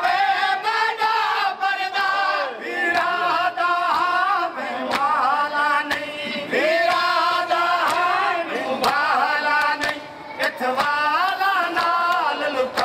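Men chanting a Muharram mourning lament (noha) in unison, the chant rising and falling in sung phrases, with sharp slaps of hands striking chests (matam) dropping in at intervals.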